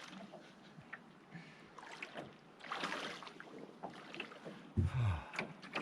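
Canoe on the water with swishing washes of water about two seconds apart, and a short low thump just before the end.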